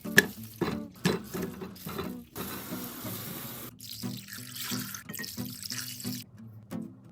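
Kitchen tap water running into a sink for about four seconds, starting two and a half seconds in and shutting off near the end, after a run of sharp knocks.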